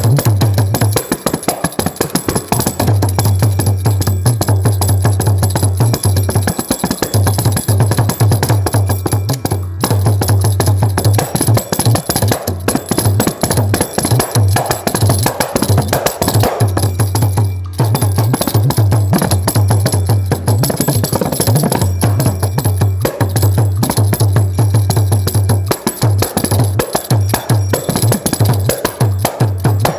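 Kanjira, the South Indian frame drum, played solo in fast, dense strokes, with a deep low note sounding under the strokes at times. There is a short break about eighteen seconds in.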